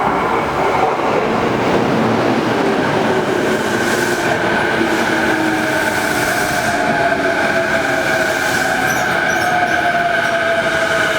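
Electric train running on the track at close range: steady rail and wheel noise with a motor whine that sinks slightly in pitch toward the end.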